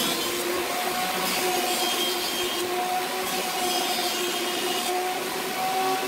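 Electric jointer running with a steady hum and tone while its cutterhead planes the edge of a board pushed across it, with a continuous hiss of cutting.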